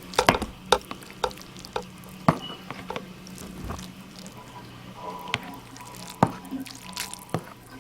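Fork working through instant ramen noodles in broth, close up: irregular sharp clinks of the fork against the bowl with wet drips, over a faint steady low hum.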